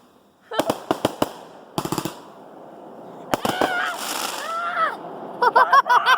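Fireworks going off: several clusters of sharp pops and crackles in the first half. Excited voices calling out near the end.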